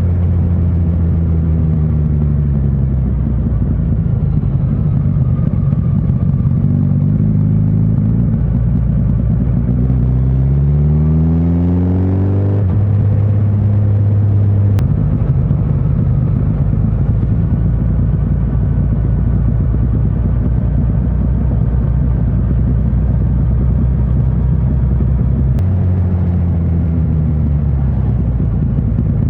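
Suzuki GSX1300R Hayabusa's inline-four engine under way, with road and wind noise. Its pitch climbs twice, once about a quarter of the way in and again near the end, with a steady cruise in between.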